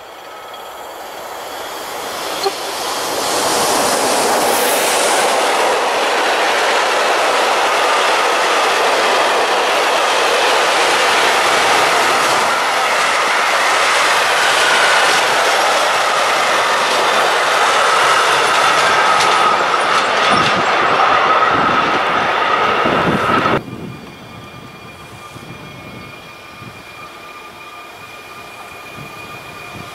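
A train passing at trackside, growing louder over the first few seconds into a long, even rush of wheels on rail with a steady high tone running through it. About 23 seconds in the sound cuts off abruptly, leaving a much quieter steady hum.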